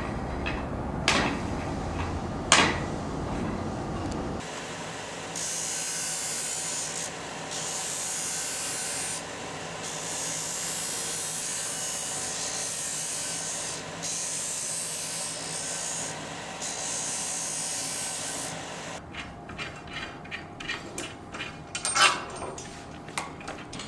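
Small wooden part being sanded on a disc sander: a dry rasping hiss in about five passes, each a few seconds long, as the piece is pressed to the spinning disc and lifted off. Before the sanding there are two sharp knocks. Near the end come light wooden clicks and knocks, one of them loud, as the wooden lift linkage is handled.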